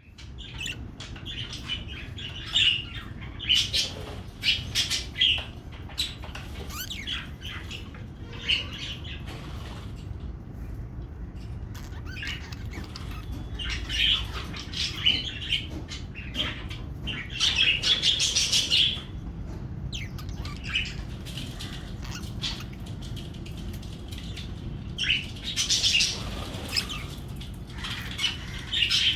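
Budgerigars chirping and warbling in bursts of rapid, high chatter, with quieter gaps between them.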